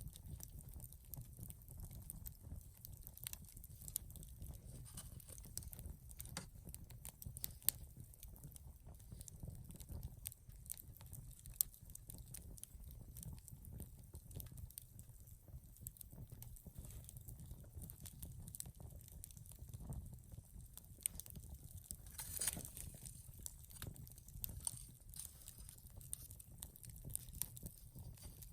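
Wood campfire crackling, with frequent small snaps and pops over a low steady rumble; a brief louder hiss about twenty-two seconds in.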